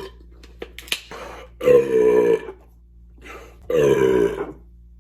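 A man belching twice, each a loud, drawn-out burp of nearly a second, brought up by the carbonation of chugged beer. The tail of another belch cuts off right at the start.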